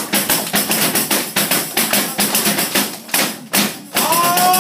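Tambourine (Galician pandeireta) struck in a steady rhythm of about four beats a second, its metal jingles shimmering on each stroke. The beat breaks off briefly near the end, and a voice starts a held, sung note.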